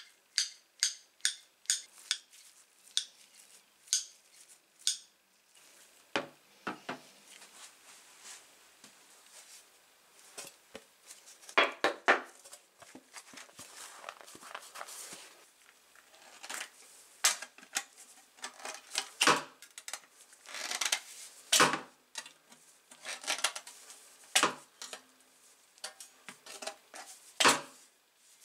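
Restored TANG 300 tin snips: first a quick series of sharp metallic clicks as the blades are opened and closed, then, from about six seconds in, a run of irregular crunching snips as they cut thin sheet metal into strips.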